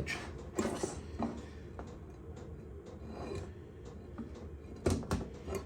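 Scattered light clicks and taps of a cross vice's parts and hand tools being handled while a stuck part is worked at, with two sharper knocks close together about five seconds in.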